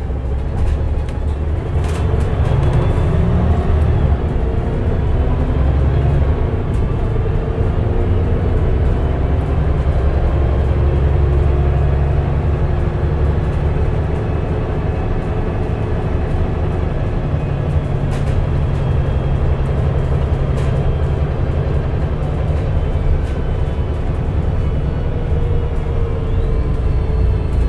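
Mercedes-Benz O405NH midi bus with Voith automatic transmission under way: a steady low engine rumble with whining tones that rise and fall in pitch as the bus speeds up and slows. Two sharp clicks, about two seconds in and past the middle.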